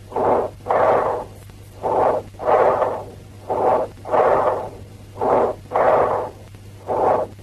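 Bronchial breath sounds from a chest recording: a short blowing inspiration, a clear pause, then a longer, harsh expiration, repeating about four times.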